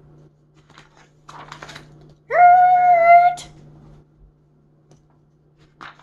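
A woman's voice imitating a bulldozer's engine with a drawn-out, steady "urrrrrt" lasting about a second. Book pages rustle as they are turned before it and near the end.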